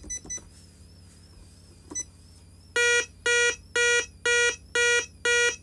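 Intruder alarm panel beeping steadily, about two evenly spaced identical beeps a second starting a few seconds in: the exit-delay countdown sounded while the system arms. A few faint short clicks come before the beeping starts.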